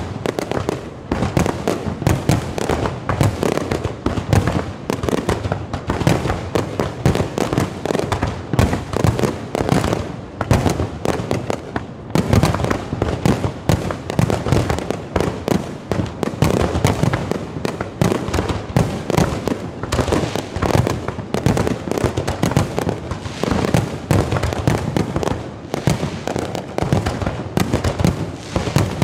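Fireworks and firecrackers going off all over a town: a dense, continuous barrage of overlapping bangs and crackles, several a second, without a pause.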